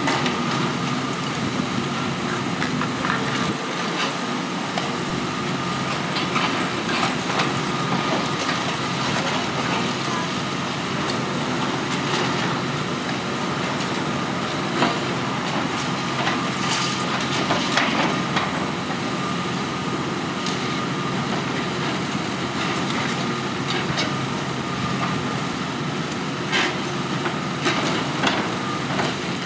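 Demolition excavator running steadily, with a thin steady whine, while its hydraulic crusher jaws break into a concrete building. Irregular cracks and clatters of breaking concrete and falling rubble sound over the engine.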